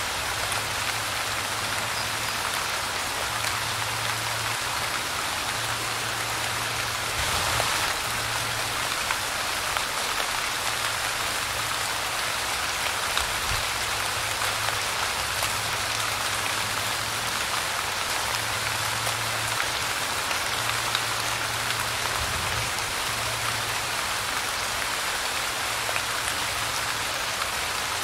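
Light rain falling steadily, an even hiss with fine scattered drop ticks, swelling briefly a little louder about seven seconds in.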